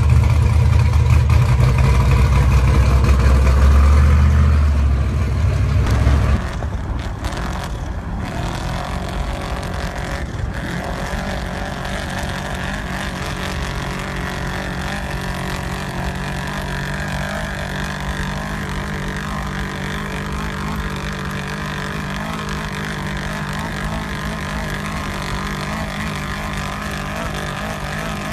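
Off-road race truck engine running loud and low close up, then about six seconds in, after a cut, a quieter, steady engine drone as the truck drives across desert sand.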